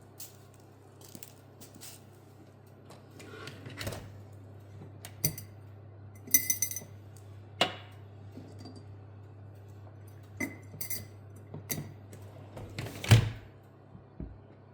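Hard household objects being handled: scattered clinks and knocks, one ringing clink about six seconds in and the loudest knock near thirteen seconds, over a steady low hum.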